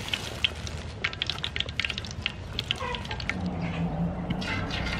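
Thin plastic sheet crinkling and crackling as fish-ball paste is peeled off it by hand, then hot oil in a wok beginning to sizzle as a fish-ball patty goes in near the end. A brief low hum sounds a little past the middle.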